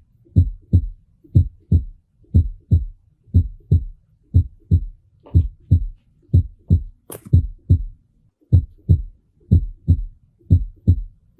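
Normal human heart sounds: the first sound (S1, 'lub') and second sound (S2, 'dub') in steady pairs about once a second. A short pause between them marks systole, and a longer pause after S2 marks diastole.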